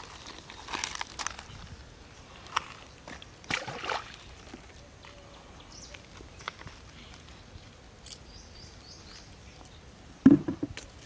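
Short bursts of splashing and scuffing at the edge of a shallow muddy pond as fishing lines and hooked fish are pulled from the water. A bird gives a quick run of about five high chirps a little after eight seconds, and a louder thump comes about ten seconds in.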